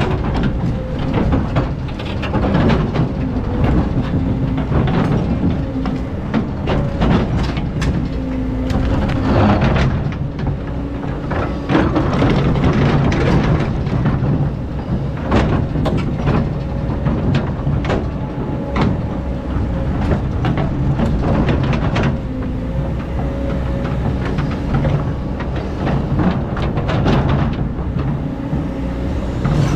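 Excavator digging sand: its diesel engine runs steadily under load, with repeated metal clanks and knocks and short whines coming and going.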